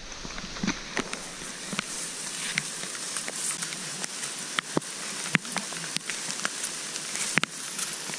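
Rain pattering on wet foliage: a steady hiss with scattered, irregular sharp ticks.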